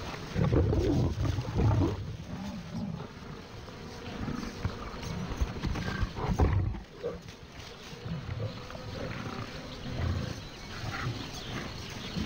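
Lions growling in rough, low, irregular bursts as they feed at a buffalo kill. The growls are loudest in the first two seconds and again about six seconds in.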